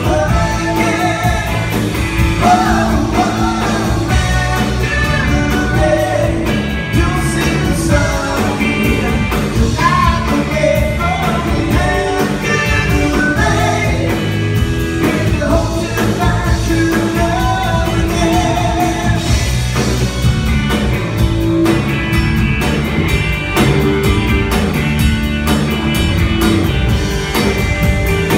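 Live rock band playing a song: a lead vocal with harmony over amplified electric guitar, electric bass and drums.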